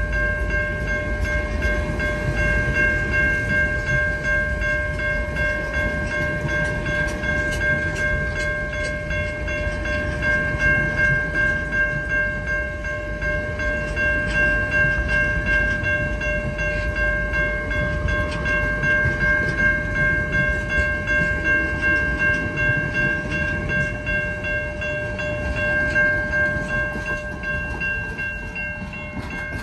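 VIA Rail passenger train hauled by F40PH diesel locomotives rolling slowly past, a steady rumble with a sustained ringing of several high pitches held over it that eases off near the end.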